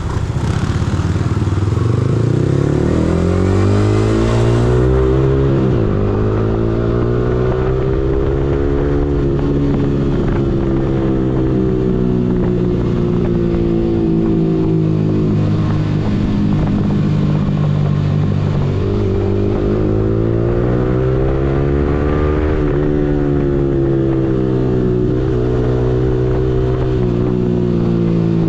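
Yamaha R15M's single-cylinder engine pulling up through the gears. The engine note rises and drops back sharply at each upshift, several times over.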